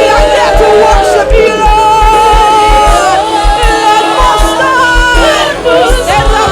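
Gospel worship music with a steady drum beat under a wavering sung melody and crowd voices.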